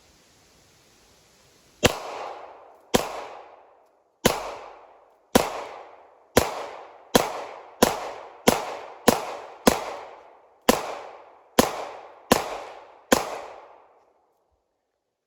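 AR-15 rifle fired semi-automatically: fourteen shots over about eleven seconds, roughly a second apart and quickening in the middle, each with a short echoing tail.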